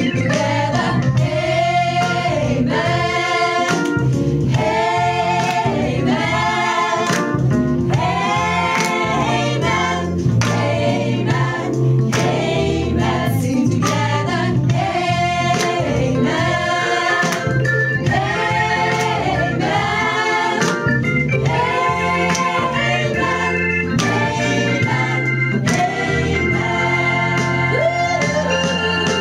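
Women's vocal ensemble singing a lively song together in Lithuanian, with hand claps on the beat over a steady low accompaniment.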